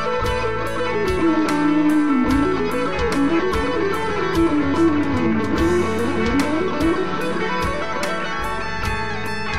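Electric guitar solo on a Stratocaster-style guitar: a fast lead line that winds up and down in pitch, over a backing track with a steady beat.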